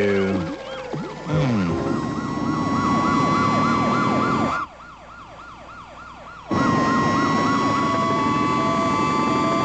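Cartoon police car sirens: a fast warbling siren of about five cycles a second over a steady wail, with low vehicle noise beneath. A brief musical flourish opens it, the sound drops sharply for about two seconds midway, then a steady wail returns with short repeating beeps.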